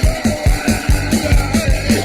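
Instrumental rock music played on drums, guitar and keyboards, with a steady drum beat of about four kick hits a second and cymbals above it.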